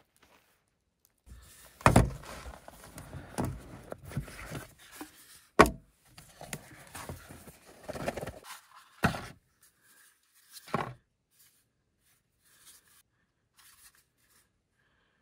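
Rustling and handling noises broken by several sharp thunks, the loudest about two seconds in and again near the middle.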